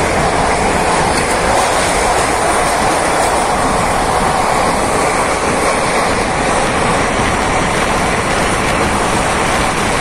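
A moving passenger train heard from aboard one of its coaches: a steady, even running noise of wheels on rails and coach rattle, with no single knock or squeal standing out.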